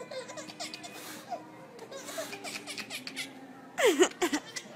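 A baby laughing in short repeated bursts, with a man laughing along; a louder fit of laughter breaks out about four seconds in.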